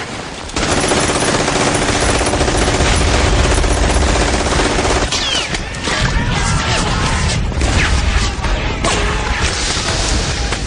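Dense battle gunfire: machine guns and rifles firing continuously in a heavy barrage, with a steady pitched drone under it for the first few seconds.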